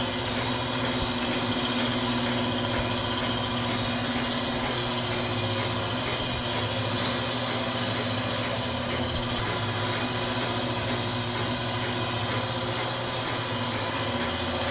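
Narrow-web flexographic label press running steadily, its rollers and web drive giving a constant mechanical hum with several unchanging tones.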